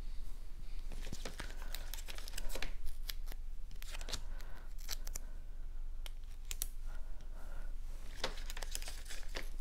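Double-sided foam adhesive squares being peeled from their backing strip and pressed onto cardstock pieces: irregular crinkling, rustling and light ticks of paper.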